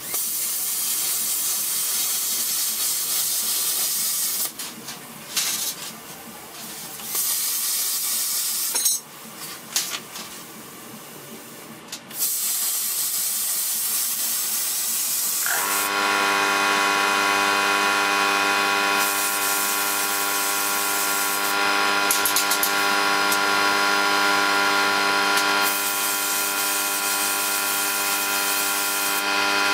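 Plasma cutter hissing as it cuts steel, stopping twice for a few seconds and then cutting steadily. About halfway through, a steady machine hum with several even tones starts and runs under the hiss.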